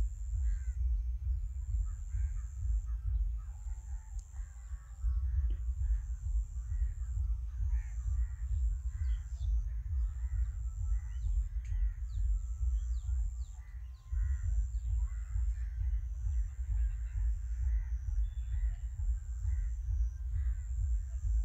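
Birds calling over and over, roughly one short call a second, over a heavy low rumble of wind on the microphone. A high thin whine pulses about once a second above them.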